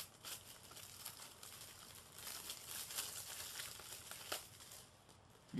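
Plastic shrink-wrap on a 4K Blu-ray case being slit with a small plastic wrap opener and pulled off: faint, irregular crinkling and crackling.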